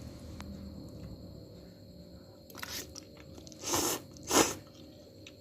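Close-up eating sounds of fried noodles with crispy fried shallots: three short crunchy bites or chews about a second apart in the second half, the last the loudest.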